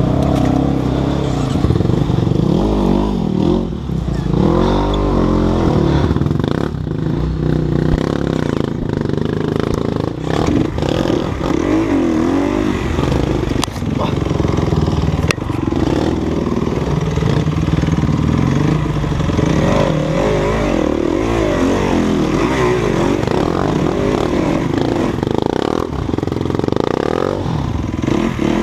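Enduro dirt bike engine revving up and down as the bike is ridden over rough trail, with a few sharp knocks and clatter from the bike.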